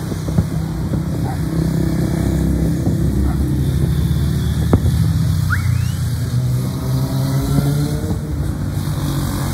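Aerial fireworks bursting at a distance: scattered bangs and crackles, with a short rising whistle about five and a half seconds in. Under them runs a steady low engine rumble.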